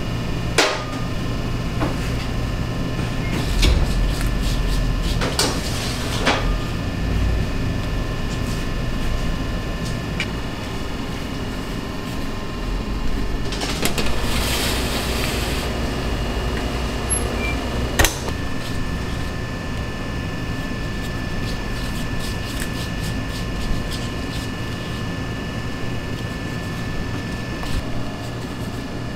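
Steady hum of bakery machinery with a few thin high tones, under scattered light knocks of baking trays and dough being set down. About halfway through, a metal baking tray slides into a rack cabinet with a brief hiss, and a sharp click follows a few seconds later.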